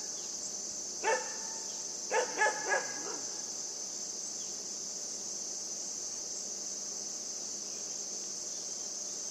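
A Great Pyrenees–Siberian husky mix puppy barking at a deer: one bark about a second in, then three quick barks a second later, then no more. A steady high chirring of insects runs underneath.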